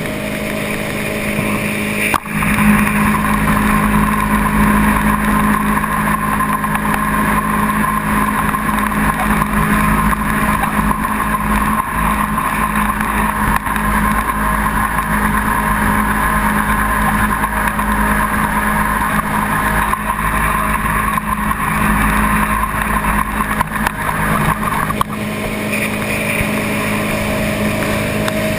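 V8 jet boat engine running hard at a steady high speed. The engine opens up suddenly about two seconds in and eases back a little near the end.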